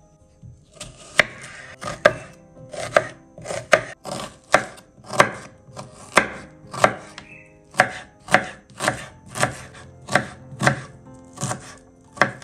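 Chef's knife chopping an onion on a wooden cutting board: a steady run of sharp cuts, about one and a half a second, starting about a second in.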